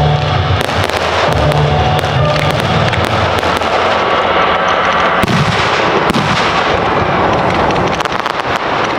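Fireworks: ground fountains hissing with many sharp crackles and pops from small shots going up, thinning a little near the end.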